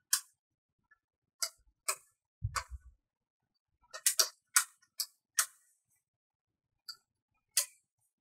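Leather powerlifting lever belt creaking in short, sharp, irregular clicks as it is bent and rolled back on itself by hand, working the stiff new leather to break it in. A dull thump comes about two and a half seconds in.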